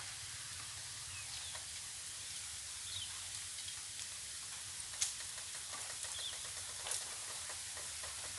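Riverbank ambience: a steady hiss with a low hum beneath, short bird chirps now and then, and two sharp clicks about five and seven seconds in.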